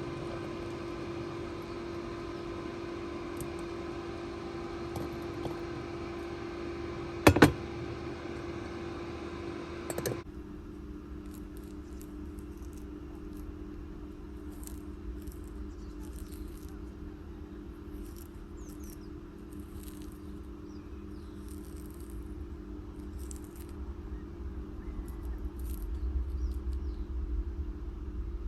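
Small birds chirping in short, high-pitched calls over a steady low hum, after a stretch of steadier humming noise. A single sharp knock comes about seven seconds in.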